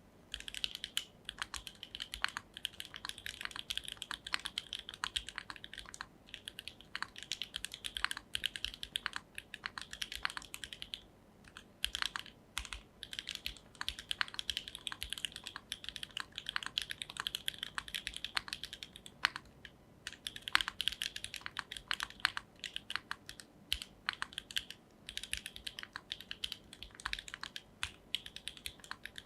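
Fast typing on a Neo80 mechanical keyboard with HMX Sonja HC switches, a carbon-fibre plate, no foam and a gasket mount, under Keykobo BOW keycaps. A dense run of keystroke clacks is broken by a few brief pauses.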